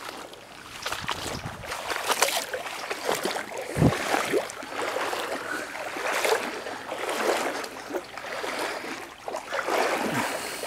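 Creek water sloshing and splashing around the legs of someone wading upstream through cold, shallow water, in irregular surges with each stride.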